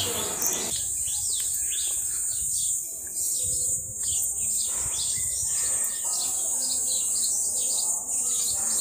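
A steady high-pitched insect drone, with birds chirping over it in many short, quick calls that slide downward in pitch.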